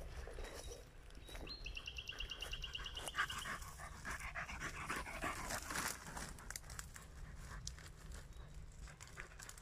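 English Springer Spaniel panting in rhythmic breaths as it pushes through dry brush, with twigs and dead leaves crackling around it.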